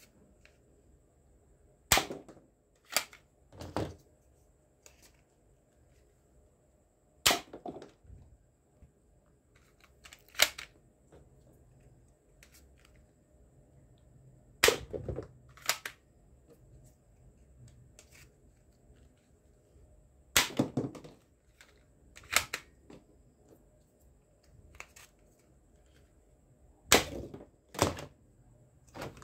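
Plastic toy guns clicking as they are cocked and triggered: about a dozen sharp snaps, often in pairs about a second apart.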